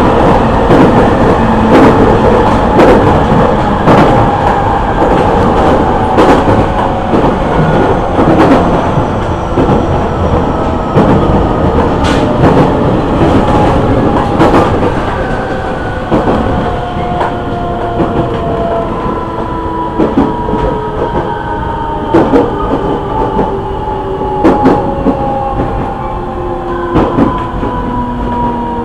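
E501 series electric train's original Siemens GTO VVVF inverter and traction motors, heard from inside the motor car: several whining tones fall slowly and steadily as the train slows under braking. Wheels click irregularly over rail joints.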